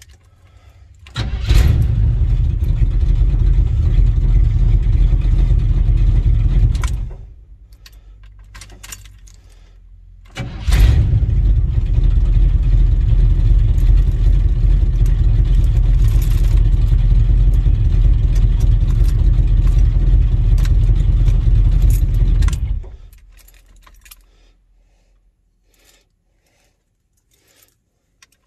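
A 1978 Chevrolet farm truck's engine starts and runs steadily for about six seconds, then shuts off. It starts again a few seconds later and runs for about twelve seconds before it is switched off. Afterwards the keys jingle and click in the ignition.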